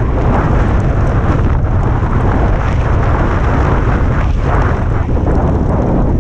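Loud, steady wind rumble buffeting the microphone of a handlebar-mounted camera on a bicycle speeding downhill.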